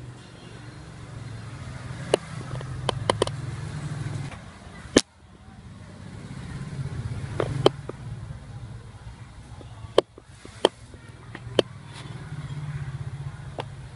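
Low rumble of passing road traffic, swelling and fading three times, with sharp clicks and knocks scattered through.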